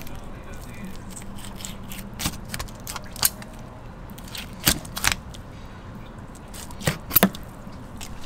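8-inch flexible fillet knife cutting through a golden tilefish's pin bones and ribs: irregular crackling snaps and scrapes, with a few louder sharp cracks in the middle and near the end.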